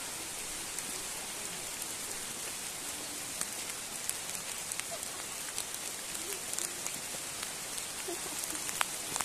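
Steady hiss of falling water from the Gocta waterfall and its spray, with scattered small ticks.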